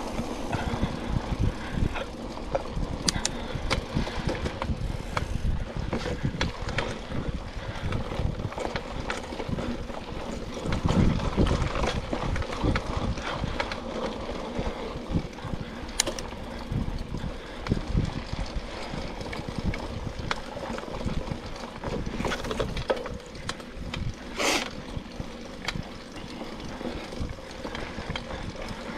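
Mountain bike being ridden over dirt singletrack, with tyres rumbling over the ground and the bike rattling and knocking over bumps. There is a louder, rougher stretch about eleven seconds in.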